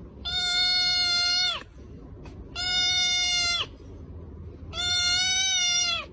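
Kitten giving three long meows at a steady, fairly high pitch, each lasting a little over a second, with about a second of pause between them.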